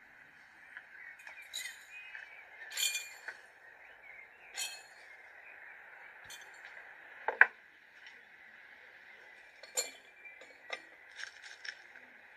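Glass jars clinking: scattered light taps and clinks as spice is sprinkled into them, with one much louder sharp clink about seven seconds in. A steady faint hiss runs underneath.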